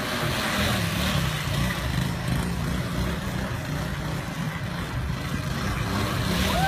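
Small motorbike engine running steadily, with a low hum whose pitch wavers slightly.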